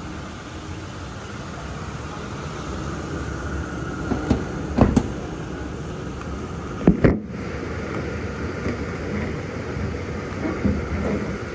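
Toyota Tacoma's 4.0L V6 idling steadily, with a few short knocks and clunks about four to five seconds in and a sharper double clunk around seven seconds.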